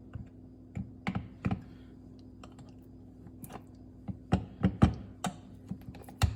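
Irregular clicks and light knocks as an espresso machine and its parts are handled, several in quick succession about four to five seconds in, over a faint steady hum.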